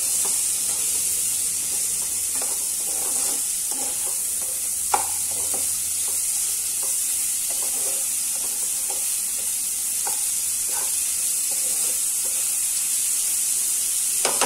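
Chopped tomatoes and spices sizzling in a frying pan while a nylon slotted spatula stirs them, scraping and tapping against the pan, with one sharper tap about five seconds in.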